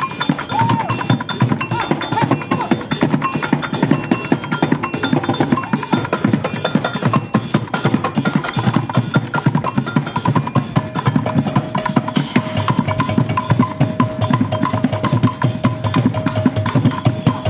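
Percussion ensemble drumming with sticks on plastic buckets, snare drums and cymbals, a dense run of rapid strokes with a low drum underneath.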